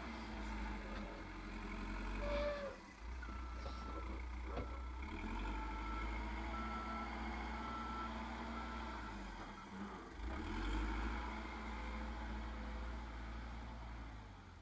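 Backhoe loader's diesel engine running under work, with its reversing alarm beeping steadily, a little more than once a second, from about three seconds in until about nine seconds in.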